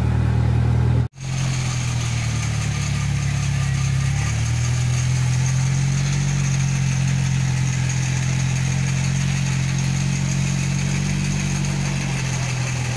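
A vehicle engine running steadily at an even low pitch. The sound cuts out for a moment about a second in.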